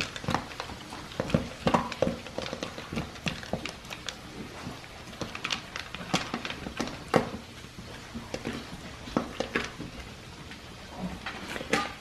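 Dog eating dry kibble from a hard plastic slow-feeder bowl: irregular clicks and rattles of kibble and snout against the plastic maze, with chewing, several a second. A louder knock comes near the end.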